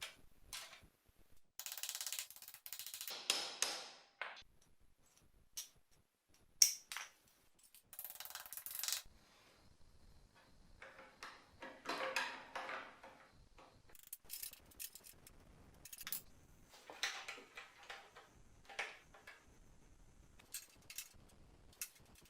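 Hand-tool work on metal car parts: scattered clicks and clinks, with several scraping or rustling stretches of a second or two. One sharp click a little before the middle is the loudest.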